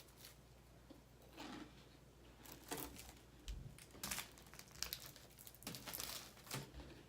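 Plastic wafer packaging crinkling faintly in irregular rustles.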